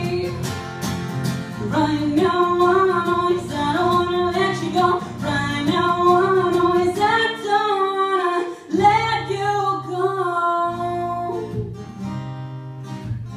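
A woman singing a slow song live, accompanying herself on acoustic guitar. Her voice ends near the end and the guitar rings on more quietly.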